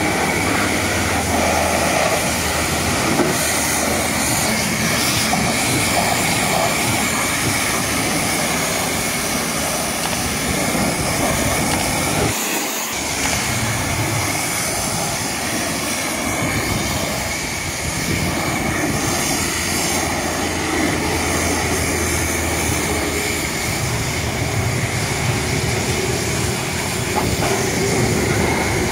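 High-pressure washer jet spraying water against a truck's steel tipper body, wheels and chassis: a steady hiss with a low rumble underneath, broken briefly about twelve seconds in.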